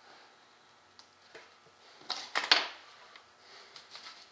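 Small parts and tools being handled on a workbench: a few faint ticks, then a quick cluster of sharp clicks and knocks a little over two seconds in.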